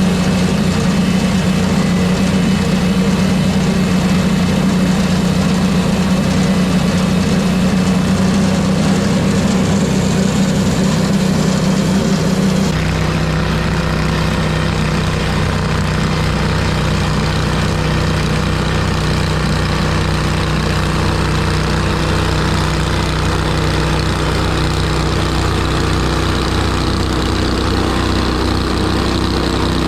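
An engine running steadily and continuously. About thirteen seconds in, its pitch and loudness drop slightly, and it runs on at the lower speed.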